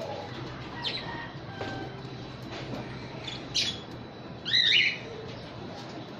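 Small pet parrots in an aviary, budgerigars and lovebirds, giving a few short sharp chirps. The loudest is a quick run of rising chirps a little past halfway.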